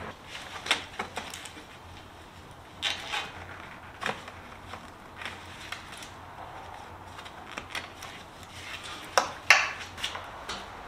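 Scattered clicks and rustling as plastic wiring connectors for the bumper's KC lights and fog lights are handled and unplugged. The two loudest sharp clicks come close together about nine seconds in.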